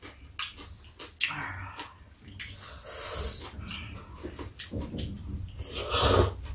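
Eating at the table: noodles and soup being slurped in hissy bursts, with chopsticks and spoons clicking against bowls. The loudest slurp comes about six seconds in, as soup is sipped straight from a bowl.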